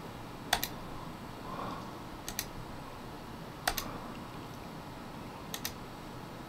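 Four quick clicks of a computer mouse button, each a double tick of press and release, coming about every one and a half to two seconds over a faint room background.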